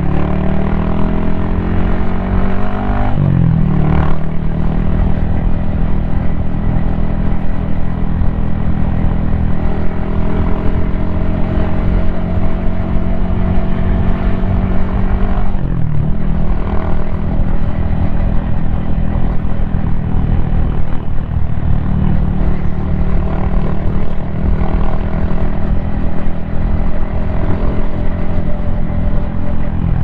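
Yamaha XSR155's single-cylinder four-stroke engine under way. The revs climb over the first few seconds and drop briefly about three seconds in, then hold a steady cruise. There is another brief dip in revs about halfway through.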